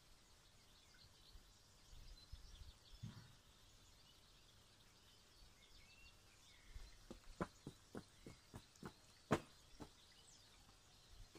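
Near silence: faint outdoor ambience with a few soft bird chirps and a light wind rumble on the microphone, then a run of small sharp clicks from about seven seconds in, the sharpest just after nine seconds.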